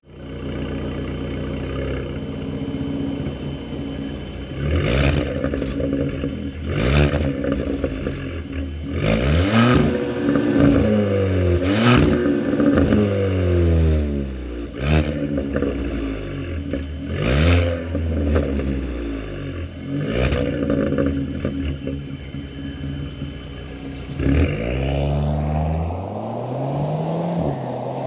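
Volkswagen Vento 1.2 TSI turbo four-cylinder with its muffler deleted, revved about seven times in a row, each blip rising and falling in pitch with a sharp crack near its peak. Near the end the revs climb once more, for longer.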